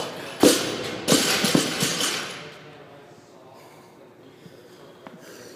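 Barbell loaded with bumper plates dropped onto a lifting platform and bouncing: one heavy hit about half a second in, then several smaller bounces and a rattle of plates that die away by about two and a half seconds.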